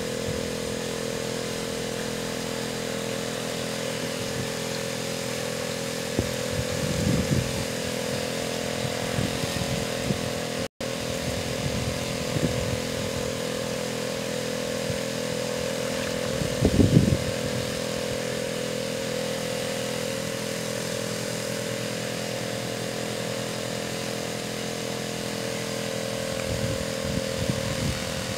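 Small boat engine driving a water pump, running steadily at a constant speed. A couple of brief louder noises rise over it about a quarter and about three-fifths of the way in.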